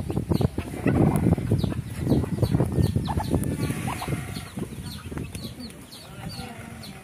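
Domestic hen clucking while her chicks peep in short, high, falling notes, several a second. A loud, rough noise fills the first half of the sound and fades away.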